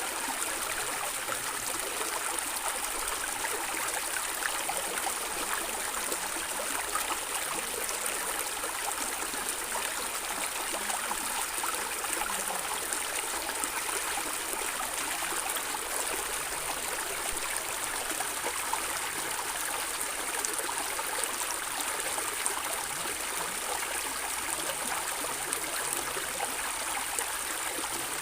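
Stream water flowing and gurgling steadily over rocks, an even rushing with fine splashes throughout.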